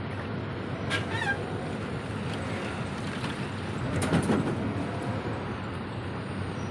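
A freight train of covered wagons rolls past with a steady rumble of wheels on rail. A short call with falling pitch sounds about a second in, and a brief cluster of knocks comes about four seconds in.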